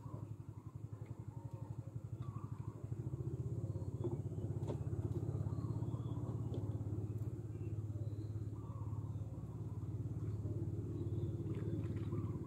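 Small boat engine running steadily with an even, rapid low putter, growing louder about three seconds in and holding there.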